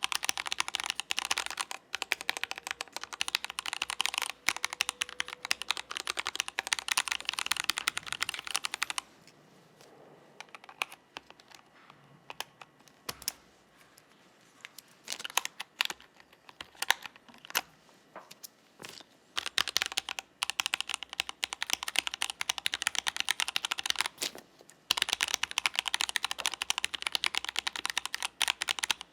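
Typing on a Melgeek Mojopad hot-swap aluminium-plate keyboard fitted with stock Gateron Brown Pro tactile switches, a fast run of keystrokes. About nine seconds in it slows to single, spaced key presses for roughly ten seconds, then fast typing resumes.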